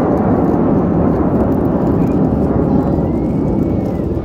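Jet aircraft flying a display overhead, a loud steady rushing roar.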